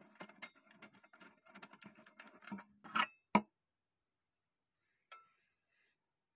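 Small metallic clicks and rattling as the fastening bolt and steel mounting bracket of an LED flood light are worked by hand with a screwdriver. Two sharp metallic knocks close together about three seconds in, the loudest sounds, as the bracket is freed and moved, then one faint click a couple of seconds later.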